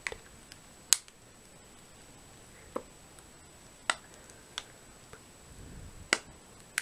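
Six or seven sharp, separate clicks and ticks, spaced irregularly, from hands handling a snack packet and a handheld electronic magnifier.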